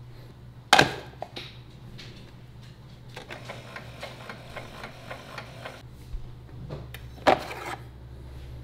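Keurig 2.0 single-serve coffee maker running: a steady low hum, with a stretch of rapid, even mechanical ticking in the middle. There is a click about a second in and a sharp knock near the end.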